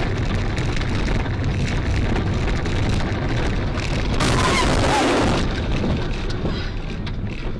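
Steady rumble and hiss of a moving car heard through a dashcam's microphone, with a louder hissing burst lasting about a second from about four seconds in.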